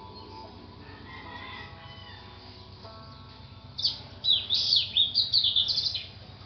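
A bird chirping rapidly for about two seconds in the second half, louder than the soft background music with held notes heard throughout.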